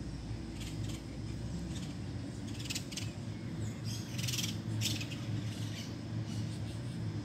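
Saffron finches chirping in a few short bursts of quick, high repeated notes, spread through the clip, over a steady low hum.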